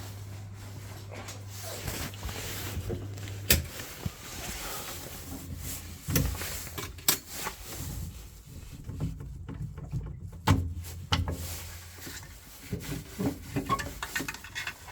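Knocks, clicks and rattles of tools and metal parts being handled as a gas combi boiler is taken apart, with a low steady hum for the first few seconds and again briefly about two-thirds through.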